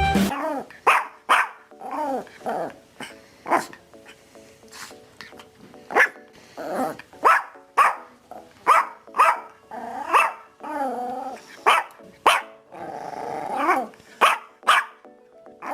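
Lhasa Apso barking repeatedly in short, sharp barks at an irregular pace, with a couple of longer drawn-out calls in the middle.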